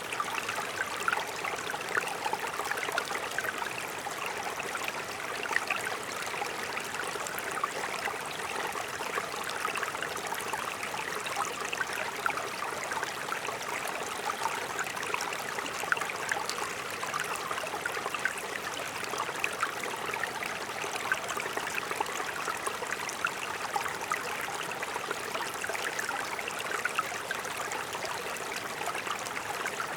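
Mountain stream flowing, a steady rush of water dotted with many small splashes and gurgles.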